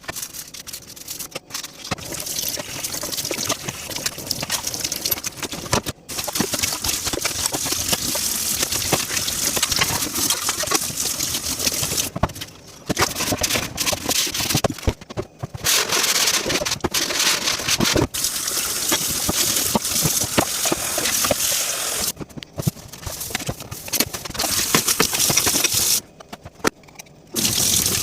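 Running tap water splashing over dishes in a sink, with frequent clinks and knocks of dishes and utensils being handled, and a few short pauses when the flow drops away.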